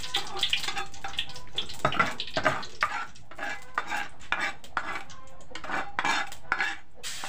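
A metal ladle scraping and clinking against a mortar and a glass bowl in short, irregular strokes as ground chili and garlic spice paste is scooped out and scraped into a wok. A sizzle starts right at the end as the paste hits the hot wok.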